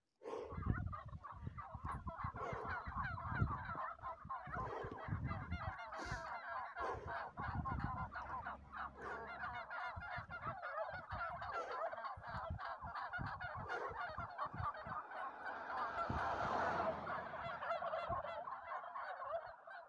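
A flock of domestic turkeys gobbling and calling all at once, a dense, continuous chatter of many birds. Scattered low thumps sound under it, mostly in the first half.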